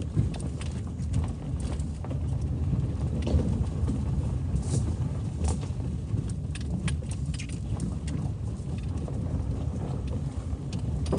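Road noise heard inside a moving car's cabin: a steady low rumble of tyres and engine, with scattered short knocks and rattles as the car rides over a bumpy road.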